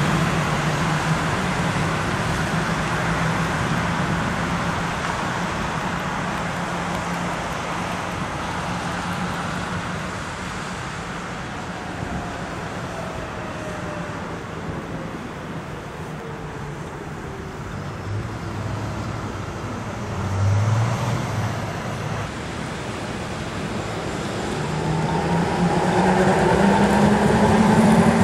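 Road traffic on a wet street: cars passing steadily with tyre hiss, a little quieter in the middle. In the last few seconds a tram approaches and passes close by, its motors whining and the sound growing louder.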